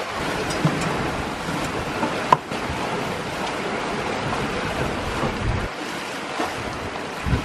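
Rushing water of a sailing catamaran's wake under way, with wind buffeting the microphone. A single sharp knock comes a little over two seconds in.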